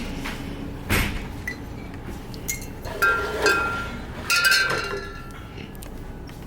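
Glass wine bottles clinking together, a sharp knock followed by a few short ringing chinks.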